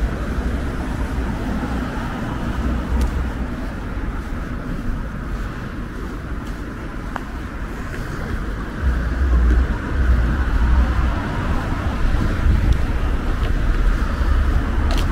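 Street ambience: a steady hum of distant road traffic, with gusts of wind buffeting the microphone in low rumbles that grow heavier from about nine seconds in.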